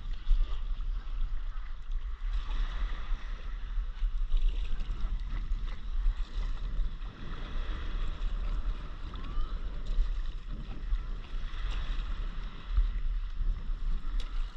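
Wind rumbling on an action camera's microphone over a stand-up paddleboard, with water splashing from paddle strokes that swell about every two seconds.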